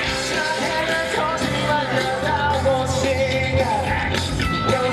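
Live rock band performance, with a male lead singer singing into a microphone over the band.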